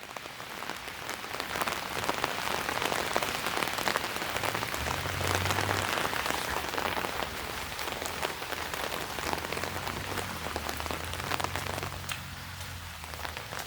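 Steady rain falling, with many small raindrop ticks. A low steady hum joins in about four seconds in and fades near the end.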